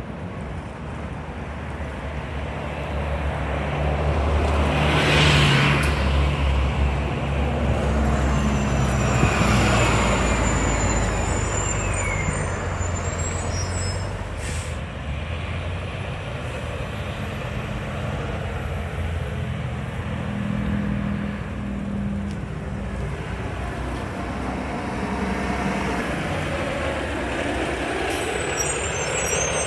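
City transit buses driving past and pulling away, engines running and growing louder as one passes close, loudest about five to ten seconds in. A short air-brake hiss comes about five seconds in, and a falling whine follows as the bus goes by.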